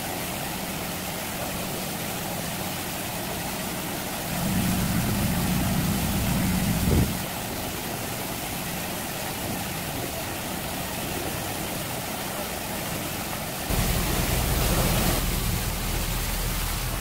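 Fireboat water cannons and deck hoses spraying, a steady rushing hiss of high-pressure water jets. Under it, the boat's engine runs with a low hum that swells about four seconds in and again near the end.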